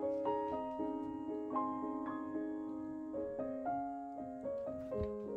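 Background piano music: a gentle melody of single struck notes, each fading away, over held lower notes.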